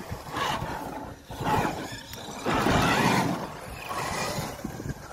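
Traxxas X-Maxx electric RC monster truck driven in bursts over dirt. Its motor and tyres surge three times, the longest and loudest about halfway through, with wind buffeting the microphone.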